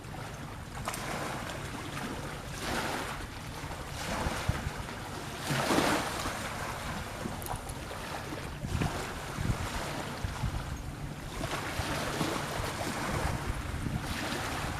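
Wind buffeting the microphone over the rush of sea water, with swells of rushing noise every few seconds and a steady low rumble underneath.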